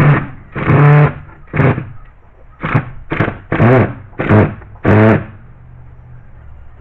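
Cordless drill driving screws into a wooden gate in about eight short trigger bursts, the motor's whine rising and falling in pitch with each burst.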